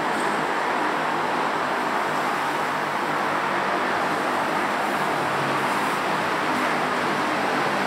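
Steady road traffic noise: a continuous hiss of cars and motorbikes on a busy multi-lane road, with no single vehicle standing out.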